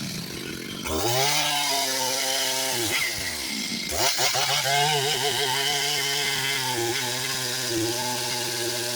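Stihl two-stroke chainsaw running at high revs. It drops back about three seconds in and revs up again a second later.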